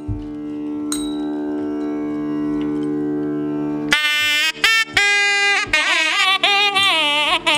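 Nadaswaram, the South Indian temple double-reed horn, playing a sliding, ornamented Carnatic melody over a steady drone. The melody drops out for the first four seconds or so, leaving only the drone, then comes back.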